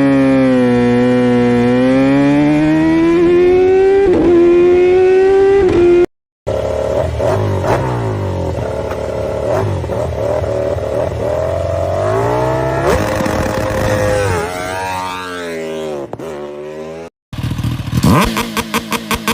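Superbike engines held high in the revs on launch control, then accelerating, in several short clips joined by abrupt cuts. The pitch holds and wavers, sweeps down in steps around two-thirds of the way through, and near the end climbs again while the level pulses rapidly.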